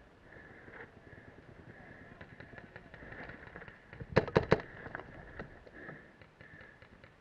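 Paintball marker, a RAP4 468, firing a rapid volley of loud sharp pops about four seconds in.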